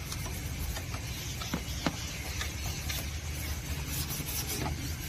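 Toothbrush scrubbing dry dirt loose from plastic engine-bay trim: a soft scratchy brushing with a few faint ticks, over a steady low rumble.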